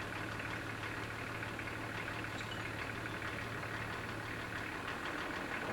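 Steady car engine and road noise heard from inside a car as it drives along.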